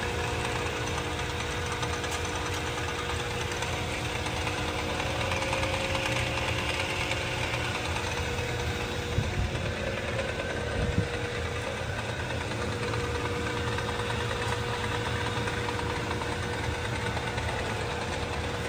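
Steady hum of running machine-shop machinery, with two brief knocks about nine and eleven seconds in.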